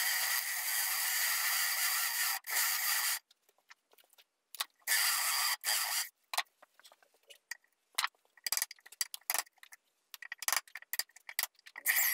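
Power drill with a 38 mm bit boring into the end of an Oregon log to clear out a mortise. It runs under load for about three seconds with a brief break, then again in a short burst about five seconds in, followed by scattered light clicks and knocks.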